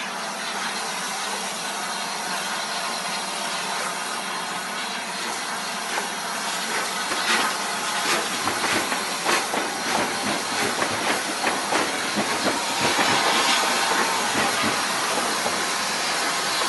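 Bulleid Merchant Navy class steam locomotive rolling slowly past with a steady hiss of steam. From about six seconds in, a run of irregular clicks and knocks from its wheels on the track joins the hiss.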